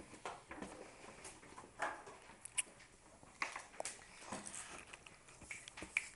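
Faint, irregular clicks, taps and rustles of a handheld camera being moved over paper on a desk.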